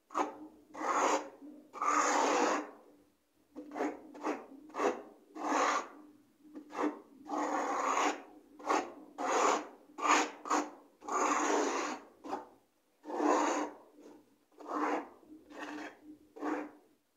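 Hand trowel scraping and rasping across a rough textured wall coating in a run of irregular strokes, some short and some about a second long.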